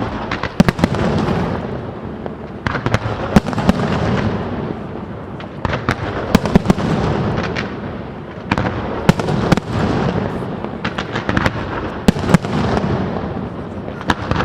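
Fireworks display: quick volleys of sharp bangs with rumbling echo between them, coming in waves every two to three seconds.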